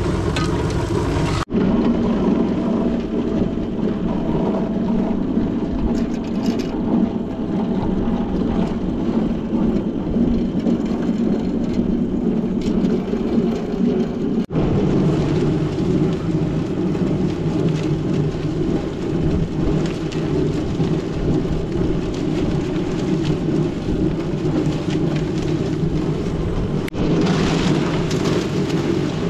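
Portable drum concrete mixer running steadily, its drum turning a mix of sand, gravel and cement with a low rumble. The sound jumps abruptly twice.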